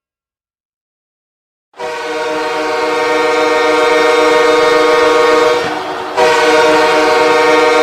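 Ice hockey goal horn of HC Torpedo Nizhny Novgorod sounding a loud, steady blast after about two seconds of silence; it dips briefly about six seconds in and then blasts again.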